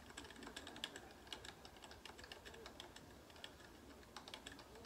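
Faint, irregular clicking and tapping, several clicks a second, like keys being typed.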